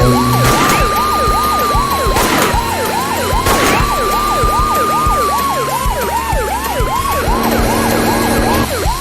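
Police sirens sounding together: a slow wail rising and falling over a fast, repeating yelp, with a few sharp hits in the first four seconds.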